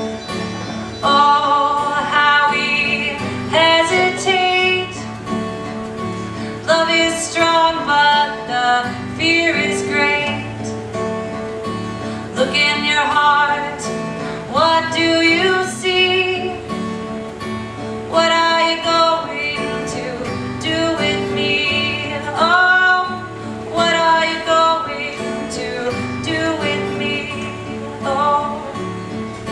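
A singer performing a song to acoustic guitar, in sung phrases every couple of seconds over steady strummed chords.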